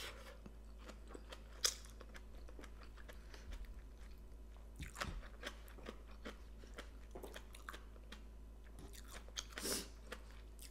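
Person chewing a mouthful of papaya salad with rice noodles and biting into raw vegetables, soft mouth sounds with a few brief crisp crunches.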